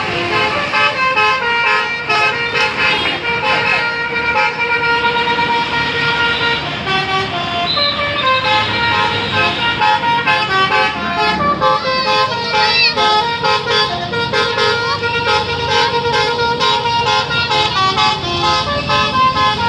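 Bus 'telolet' musical horn, a set of multi-tone horns playing a melody of stepped notes without a break.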